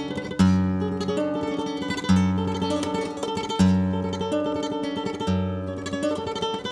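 Flamenco guitar playing: a loud struck chord with a ringing bass note about every second and a half, with quick plucked notes between them.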